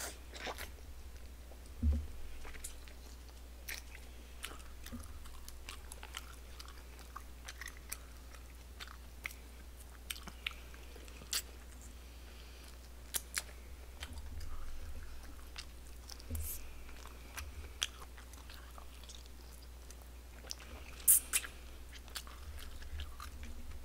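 A person eating barbecue pig's trotters (jokbal) by hand, biting and chewing meat from the bone with scattered wet clicks and smacks. There is a louder smack about two seconds in and a few more near the end.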